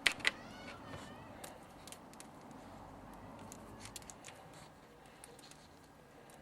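Handling noise: a few sharp clicks and knocks in the first moments, one followed by a brief squeaky ringing, then sparse light ticks.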